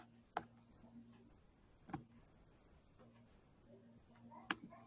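Three sharp, isolated clicks a second or two apart over a faint low hum.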